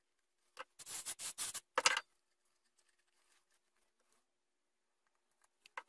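Natural-fibre rope rasping as it is pulled and wound around a plastic pipe: a quick run of about half a dozen scratchy strokes over a second and a half, then near quiet with a short click near the end.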